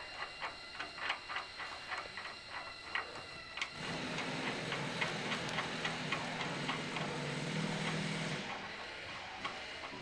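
Rhythmic metallic clicking, about three clicks a second, as the 1/2-inch bolts holding the plow shoe bracket to the blade are loosened and removed. From about four seconds in, a steady low hum joins for about four seconds, then stops.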